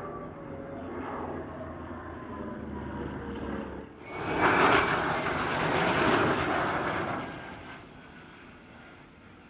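Piston engines of a formation of propeller-driven warbirds droning overhead, their pitch slowly falling as they pass. About four seconds in the sound switches abruptly to the loud roar of a Lockheed Martin F-35A Lightning II's single Pratt & Whitney F135 turbofan at takeoff, which fades away over the last two seconds.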